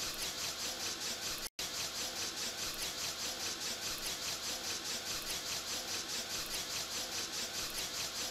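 File-sanding machine with cross-arranged abrasive belts running, a steady hiss with a fast, even pulsing. The sound breaks off for an instant about one and a half seconds in.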